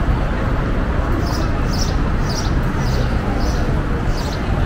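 Busy city-street ambience: steady traffic and crowd murmur, with a run of short high chirps repeating about twice a second from about a second in.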